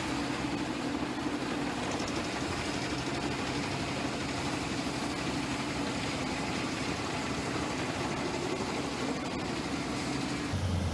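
Large wood chipper's engine running with a steady, unbroken drone. It changes abruptly near the end.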